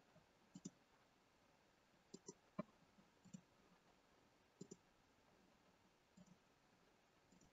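Faint computer mouse clicks in a quiet room: about eight short clicks spread over the seconds, several in quick pairs, the loudest about two and a half seconds in.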